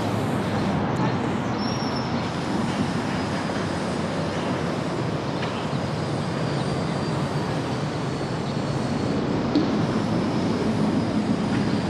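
Steady downtown city noise: a continuous even rumble and hiss, with a faint thin high squeal about two seconds in.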